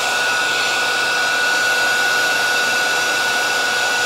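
Heat gun running, a steady rush of blown air with a thin high whine over it, as it is passed over insulation foam to soften and shape it.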